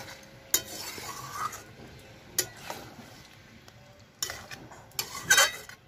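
Flat metal spatula stirring chicken pieces in a metal wok, scraping along the pan with sharp clinks of metal on metal every second or two, the loudest cluster near the end.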